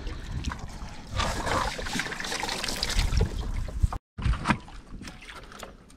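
Water trickling and splashing as a cast net and its line are hauled in over the side of a small boat. The sound breaks off for a moment about four seconds in.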